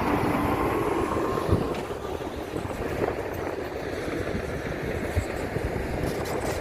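Heavy diesel earthmoving machinery running, a steady engine rumble that eases a little after about two seconds.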